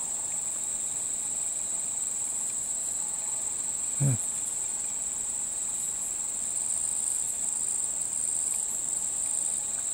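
Steady high-pitched chorus of insects trilling, with faint pulsing that grows a little louder in the second half. A man's voice gives one brief sound about four seconds in.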